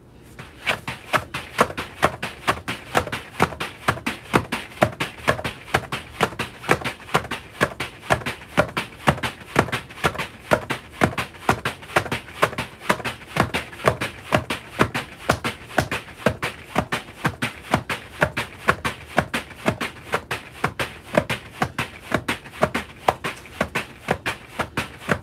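Battle ropes slapping the floor in steady double-arm waves, both ropes striking together in a regular rhythm of about three slaps a second.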